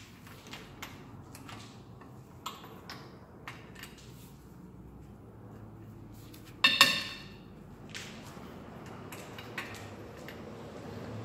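Hand tools clicking and knocking against the steel steering knuckle and hub parts, with one loud ringing metal clank about two-thirds of the way through.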